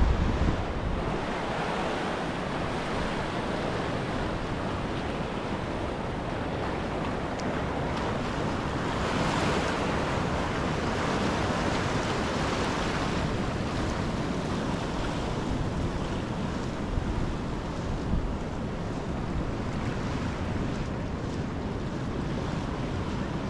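Small waves washing onto a sandy beach, a steady surf hiss that swells louder for a few seconds midway, with wind on the microphone.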